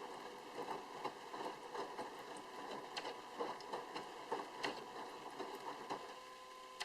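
Sharp drum washing machine running: laundry tumbling in the drum with irregular soft knocks and swishes over a steady motor and pump whine. About six seconds in the tumbling stops and only the steady whine goes on.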